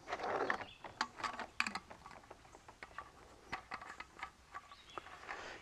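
Cap being screwed onto a small metal lawn mower gas tank that holds loose nuts and bolts: faint scattered clicks and light scraping, with the hardware inside clinking now and then.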